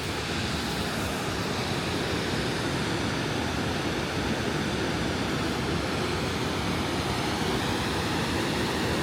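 Rushing water of a waterfall, a steady, even hiss of falling and flowing water.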